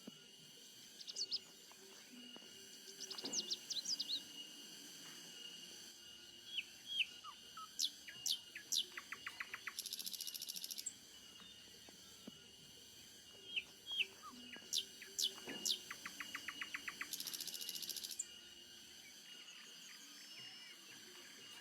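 Several birds chirping and whistling in short rising and falling notes over a steady high insect hum, with a fast buzzy trill twice. The same run of chirps and trills comes twice, about seven seconds apart.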